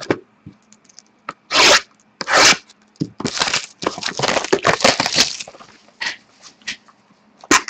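Plastic shrink-wrap being torn and crinkled off a sealed box of trading cards: two short rips, then a longer stretch of dense crackling in the middle, then a few light clicks and rustles.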